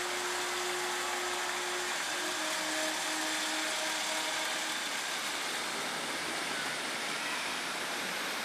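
Class 156 Super Sprinter diesel multiple unit pulling out and running past, its underfloor diesel engines working under power with a steady rush of noise and a faint steady whine in the first half.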